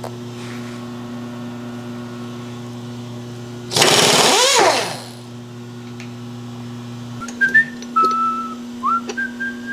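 A man whistling a few short notes near the end, over a steady shop-machine hum. A loud rushing hiss about a second long comes near the middle.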